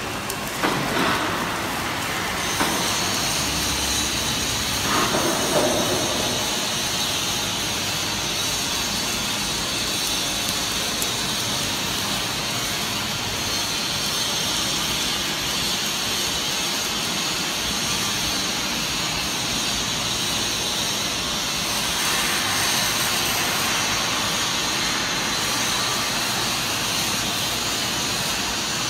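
Steady hissing machinery noise of a pipe seam-welding line, with a few short knocks in the first six seconds.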